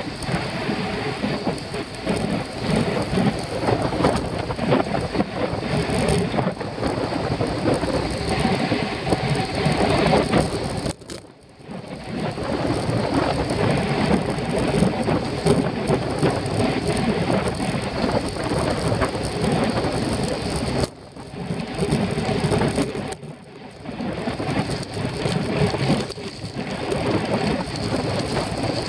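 Wind rushing and buffeting over a bicycle-mounted camera's microphone at riding speed, a loud steady rumble that drops away briefly three times, about halfway through and twice near two-thirds of the way.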